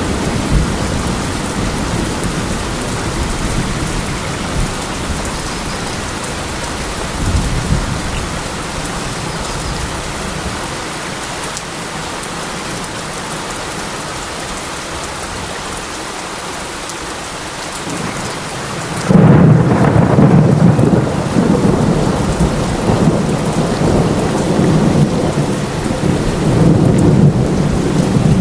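Steady heavy rain with thunder rumbling under it. About two-thirds of the way through, a loud thunderclap breaks in suddenly, and its low rolling rumble carries on over the rain.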